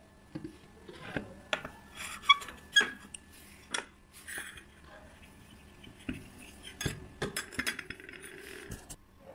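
Aluminium idli mould plates and stand being handled on a stone counter: scattered knocks and light metallic clinks, a couple ringing briefly. Near the end a silicone brush rubs oil over a plate, with small clicks.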